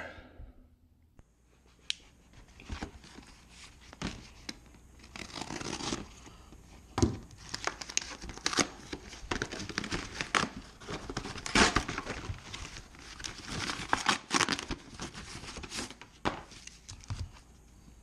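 A parcel's brown paper wrapping torn open by hand, in irregular rips and crumpling rustles.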